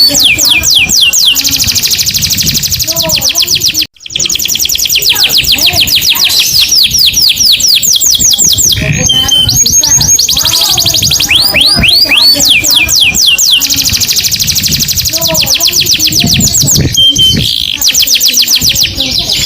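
Domestic canary singing continuously in fast trills: long runs of rapid repeated notes, many sweeping downward, changing from one run to the next. The song breaks off briefly about four seconds in.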